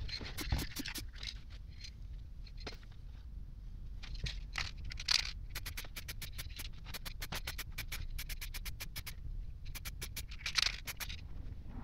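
Aerosol spray-paint can spraying in short hissing bursts, with runs of rapid, even clicks, about six a second, in between.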